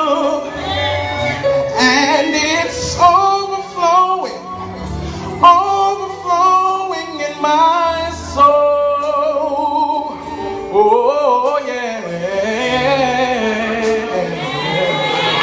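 Gospel choir singing with a soloist's ornamented runs over a band's bass line, the last bars of a song of worship.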